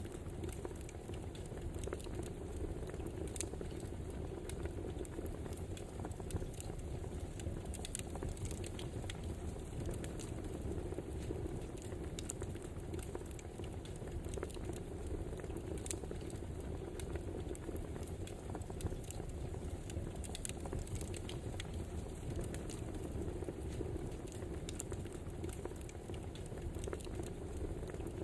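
Wood fire burning with scattered sharp crackles and pops over a steady low rumble.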